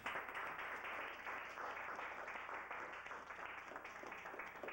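Audience applauding, the clapping starting suddenly.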